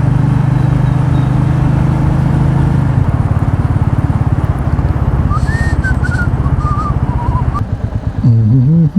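Royal Enfield Meteor 350's single-cylinder engine running under way, heard from the rider's helmet. The note is steady until about three seconds in, then turns into a pulsing, throbbing beat. A few short high chirps come in the middle, and a voice starts near the end.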